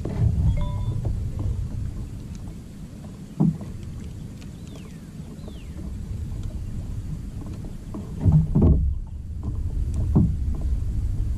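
Low, uneven rumble from a fishing kayak moving on open water. A few knocks on the kayak cut through it, the loudest cluster about eight and a half seconds in.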